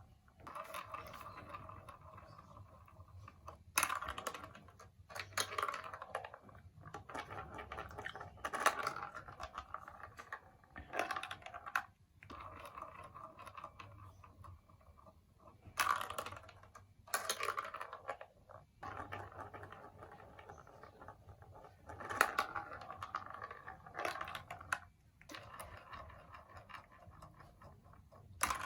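Marbles rolling along and clattering through a plastic building-block marble run: a steady rolling rumble broken by many sharp clicks as marbles drop and hit the plastic pieces.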